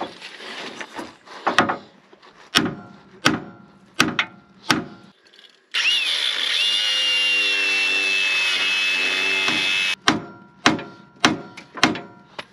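Hammer blows on a rusted steel pitman arm, each strike ringing, in two runs: five strikes, then four more near the end. Between them a cordless power tool runs for about four seconds with a steady high whine and then stops suddenly.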